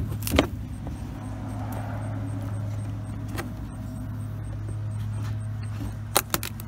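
Wooden crate lid being pried with a hand tool: a sharp crack about half a second in, another knock about three and a half seconds in, and two quick knocks near the end. A steady low engine hum runs underneath.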